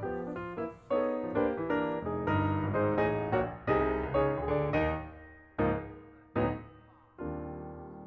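Background piano music: a flowing run of notes that slows to a few separate chords near the end, the last one held and fading.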